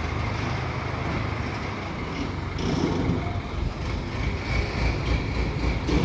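Heavy engine running steadily: a low rumble with a faint high whine above it.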